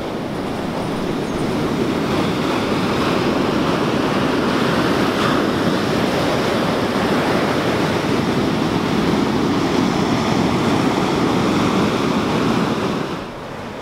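Ocean surf breaking and washing up a beach: a steady rush of waves, building over the first couple of seconds and dropping off shortly before the end, with some wind on the microphone.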